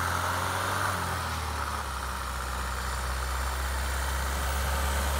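Mahindra Thar's diesel engine running at low revs, a steady low hum, as the jeep crawls through deep snow.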